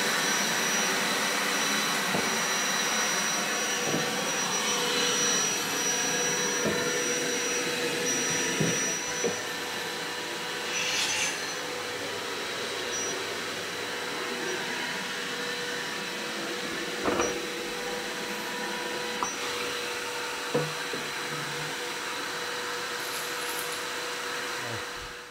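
A motor-driven fan running steadily, giving an even whoosh with high whining tones, then cutting off sharply at the end. A few light knocks of objects being handled sound over it.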